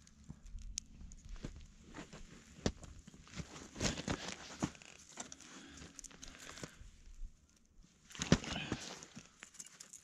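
Close rustling and crinkling of hands handling camping gear, with scattered small clicks and knocks. It pauses briefly near the end, then comes back as louder rustling.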